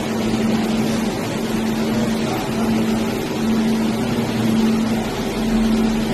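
Jewelry laser welding machine running just after start-up, its cooling fans and water pump giving a steady hum and hiss, with a low tone that wavers slightly.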